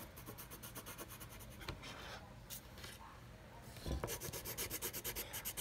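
Pencil scratching on paper, shading in a small shape. The scratching is faint and turns into a quicker run of back-and-forth strokes, several a second, about four seconds in.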